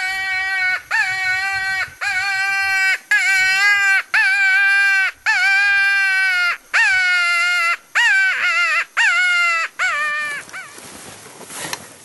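A run of coyote-style howls: about ten drawn-out, steady notes, each just under a second, then several shorter notes that swoop up and down, ending about ten and a half seconds in. Wind noise follows.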